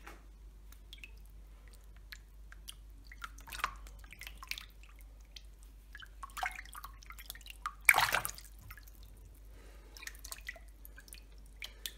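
Water in a plastic tub splashing and dripping as a hand moves through a catch of fish: irregular small splashes and drips, the loudest about eight seconds in.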